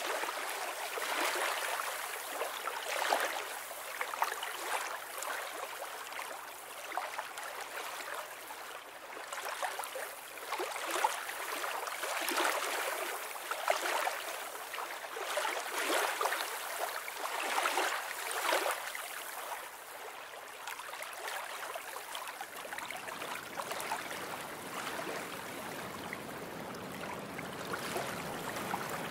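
Rushing water, a steady wash with swells every second or two. About two-thirds of the way through it becomes more even and a deeper low rumble joins it.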